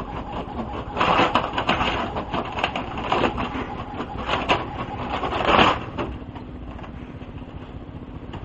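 Inkjet printer running as it feeds paper out, with the sheets rustling and crinkling under a cat's paws. About six seconds in the rustling stops, leaving the printer's quieter steady hum.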